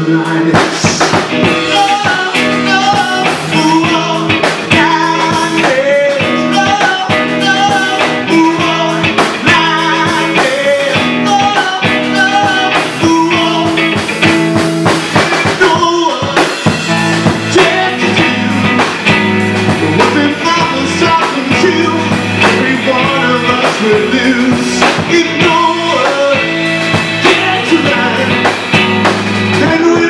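A live blues-rock band playing: electric guitar, electric bass and drum kit, loud and continuous, with the low end growing fuller about halfway through.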